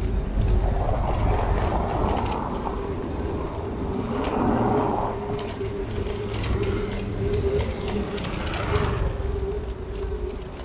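Sound of riding a bicycle through city streets: a steady low rumble of wind and road noise with mechanical ticking from the bike, a steady hum, and passing traffic swelling twice.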